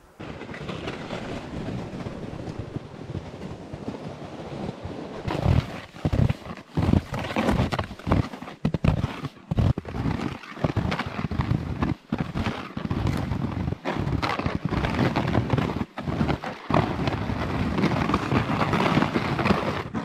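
Skis moving over snow, stride after stride, in an uneven rhythm of scraping and crunching.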